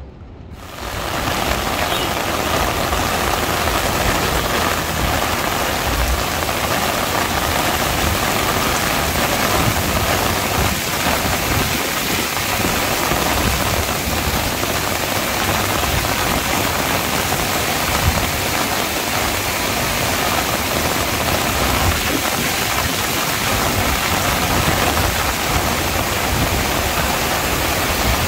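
Heavy rain pouring down steadily, coming in suddenly about half a second in, with a low rumble underneath.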